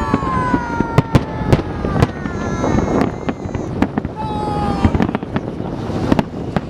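Holiday fireworks salute going off overhead: sharp bangs and crackles at irregular intervals.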